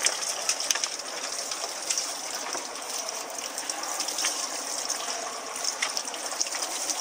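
Seawater splashing and gushing against the side of a fishing boat, a steady wash with many small splashes.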